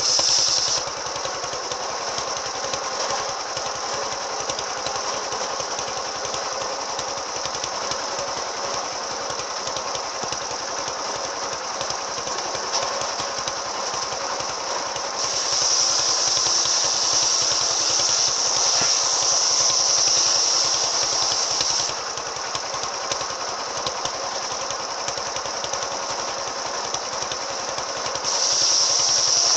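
Circular saw fitted with an AKM saw blade, running steadily under a fast, even engine-like pulse. For a stretch in the middle and again near the end it gets louder, with a high-pitched hiss added as the blade bites into the cut.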